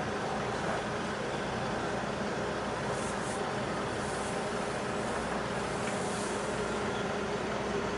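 Steady mechanical drone with a low hum from a large container ship's engines and machinery as the ship passes close by, with a few faint hissing puffs over it.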